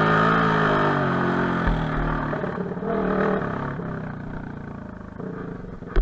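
Enduro motorcycle engine coming off the throttle, its note falling and fading, with a brief blip of throttle about halfway through before it settles to a low, quieter run. There is a dull knock early on.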